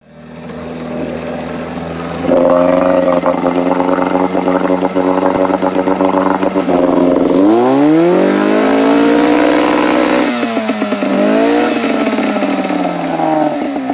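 Mercury 9.8 two-stroke outboard motor running with its lower unit in a water barrel. It runs steadily, revs up sharply a little past halfway and holds, drops back, revs briefly again and then winds down near the end.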